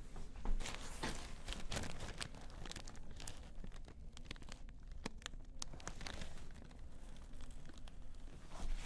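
Rustling and crinkling with scattered sharp clicks as a patient lying face up on a chiropractic table is handled and adjusted.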